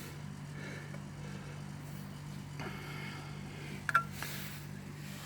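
Tyre-inflator hose chuck on a car tyre valve while the pressure is read: faint short hisses of air and one sharp metallic click about four seconds in, over a steady low hum.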